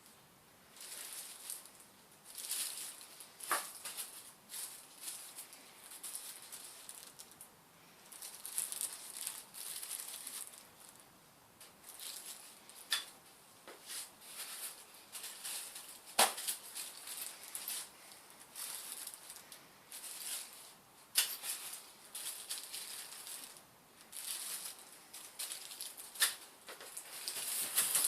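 Packaging being handled and unwrapped: irregular rustling, with a few sharp clicks and knocks, about five in all, as parts are taken out.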